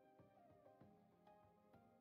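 Faint instrumental background music: a melody of held, gliding notes with new notes starting every fraction of a second.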